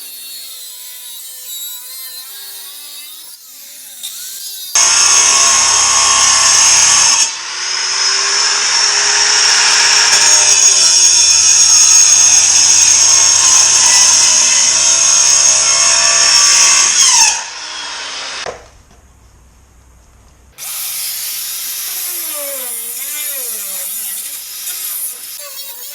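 Power tool running hard on the van's sheet-metal bodywork for about twelve seconds, a high steady whine over a rough noise, then stopping.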